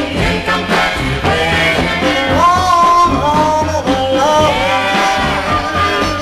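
Soul music from a 45 rpm vinyl single: the full band plays on near the end of the song, with held melody lines that glide between notes and no lyrics sung.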